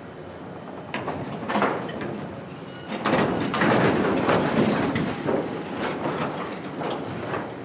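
Corrugated sheet steel of a collapsed grain bin crumpling, creaking and scraping as an excavator bucket crushes it: a couple of sharp metal cracks about a second in, then a longer run of crunching from about three seconds in. The excavator's engine runs steadily underneath.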